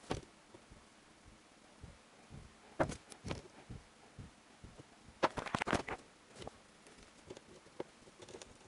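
Handling sounds of rubber hose pieces and metal hose clamps being fitted onto an electric engine pre-heater's pipes. They come as scattered light clicks, knocks and rubbing, with a pair about 3 s in and a denser cluster about 5 to 6 s in.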